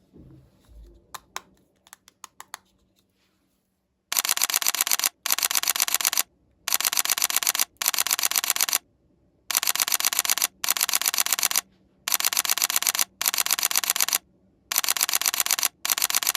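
A few light clicks of handling, then from about four seconds in, rapid clicking in repeated bursts about a second long with short pauses between them, about ten times.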